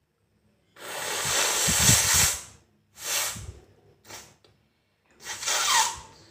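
A person blowing their nose forcefully, in three hard blasts and a small one: the first long, about a second and a half, with a low flutter underneath, the last about a second.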